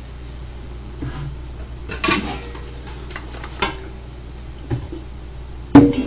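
Dishes and cutlery clattering as bowls are moved and set down: a handful of separate knocks, some with a brief ringing, the loudest near the end.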